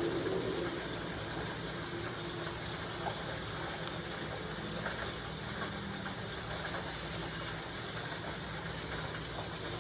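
Steady mechanical hum with a faint hiss, broken by a few light clicks and taps.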